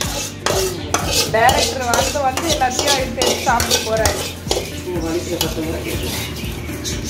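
A spoon stirring and scraping through food on a ceramic plate, with repeated clinks against the plate. Short pitched calls sound in the background between about one and four seconds in.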